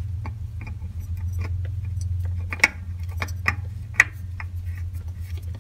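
Small clicks and taps of a new oil filter being handled and threaded onto an ATV engine by hand, with three sharper clicks between about two and a half and four seconds in, over a steady low hum.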